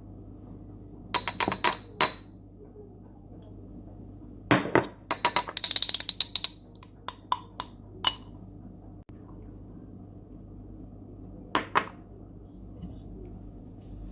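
Glassware clinking: bursts of light knocks on glass, each with a brief bright ring. A quick run of clinks comes in the middle and two more near the end.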